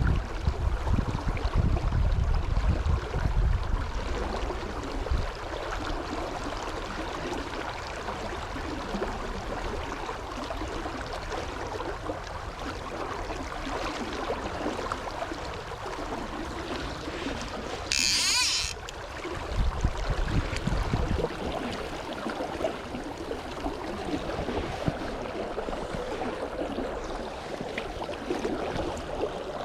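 Steady rush of river water, with gusts of wind rumbling on the microphone in the first few seconds and again about twenty seconds in. A short, sharp hiss cuts through about eighteen seconds in.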